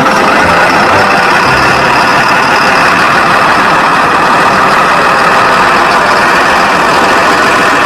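Caterpillar D8T dozer's C15 six-cylinder diesel engine running steadily at idle, just after start-up.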